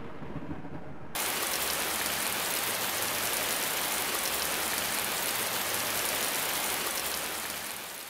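Steady hiss of heavy rain that comes in suddenly about a second in and fades out near the end, after the tail of a low thunder rumble.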